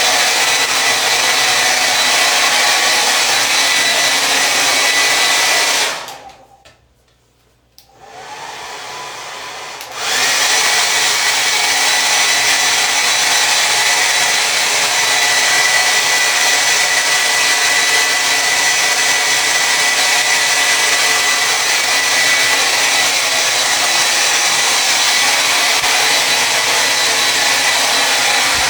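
Hair dryer blowing with a steady, loud rush of air. About six seconds in it cuts off, comes back softer and lower for a couple of seconds, then returns to full strength at about ten seconds.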